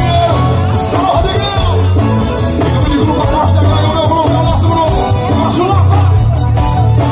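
Live forró band music at full volume: a male singer over accordion and a heavy pulsing bass.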